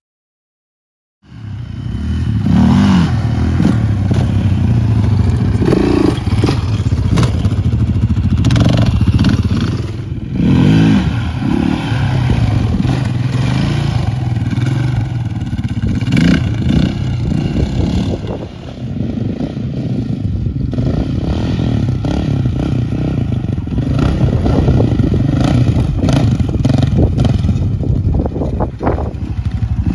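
Yamaha Raptor 700 quad's single-cylinder four-stroke engine pulling long wheelies, its revs rising and falling as the throttle is worked to keep the front wheels up. It starts about a second in and eases off briefly twice.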